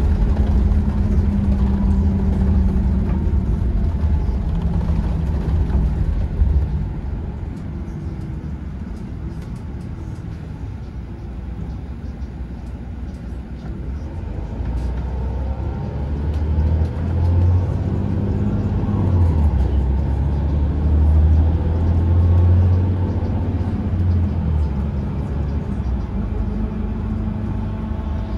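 Low engine and road rumble inside a moving road vehicle, with a steady low hum under it. It eases off in the middle and swells louder again about two-thirds of the way through.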